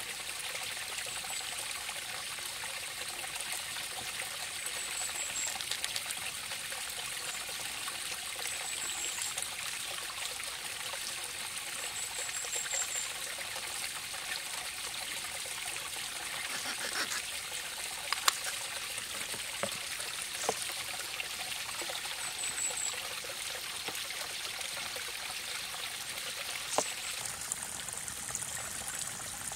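A stream trickling steadily. A few short high chirps come through over it, and a couple of sharp clicks sound in the second half.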